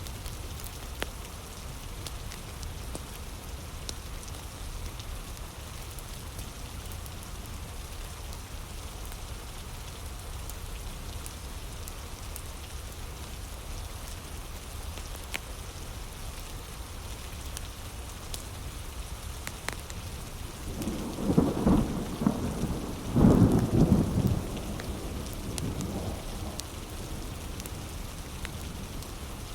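Steady heavy rain. About two-thirds of the way through, a rumble of thunder swells for a few seconds and is the loudest sound. Faint scattered crackles run through it.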